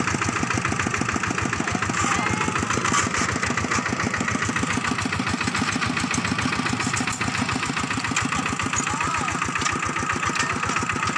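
Single-cylinder diesel engine of a two-wheel walking tractor running steadily with a fast, even chugging while it pushes and levels earth with its front blade.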